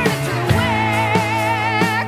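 Background music: a rock song with singing, guitar and drums.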